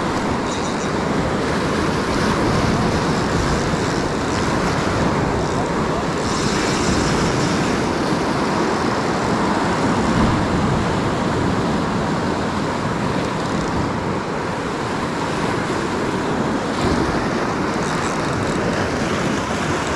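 Ocean surf breaking and washing over a rock ledge: a steady, loud rushing of water.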